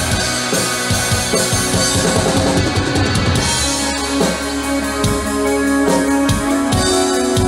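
Metal band playing live, heard from the crowd: drum kit and electric guitars. Fast drumming in the first half gives way, about halfway through, to held guitar notes over slower bass-drum hits.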